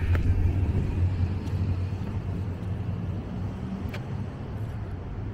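Low rumble of a passing vehicle, loudest at the start and slowly fading away. A single sharp click about four seconds in.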